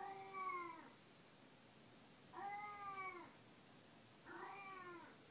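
Elderly tortoiseshell cat meowing three times, about two seconds apart, each meow a drawn-out call of about a second that rises and then falls in pitch.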